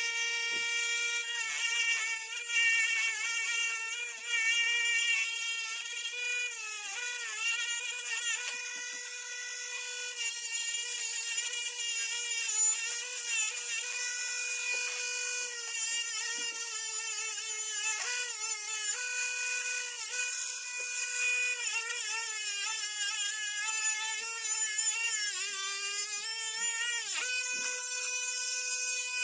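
A small high-speed electric rotary tool runs steadily with a high motor whine. Its pitch sags for a moment several times, most of all near the end, as the tool is pressed into the metal vise part and loaded.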